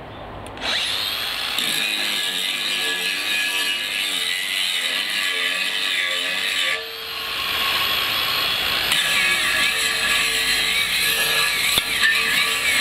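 Cordless 18 V brushless angle grinder fitted with a concrete wheel, spinning up with a rising whine about half a second in and running at speed. It drops off and spins up again about seven seconds in. From about nine seconds its pitch wavers as the wheel is put under load.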